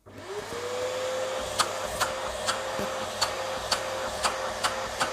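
Vacuum cleaner, fitted with a larger replacement motor taken from an older vacuum, switching on: the motor spins up within about half a second to a steady high whine over a rush of air, pulling strong suction. Sharp ticks come about twice a second throughout.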